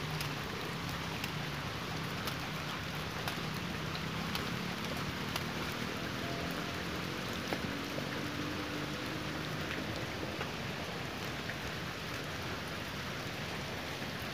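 Steady rain falling on wet concrete and puddles, with many small drop ticks throughout.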